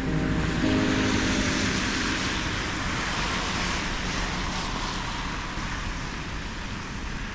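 A passing vehicle: a broad rushing noise that builds after the first second or so and fades toward the end.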